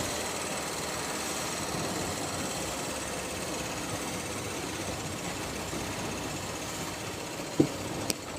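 Opel Kadett B's tuned 1.2 S OHV four-cylinder engine running with a busy ticking rattle, a noise the owner fears is a worn bearing somewhere underneath. A sharp click near the end.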